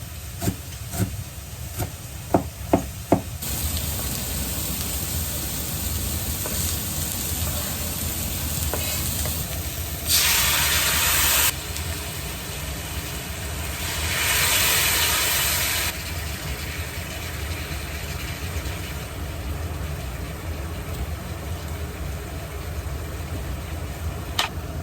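A few sharp knocks, then food sizzling steadily in a frying pan, with two louder hissing surges of a second or two each.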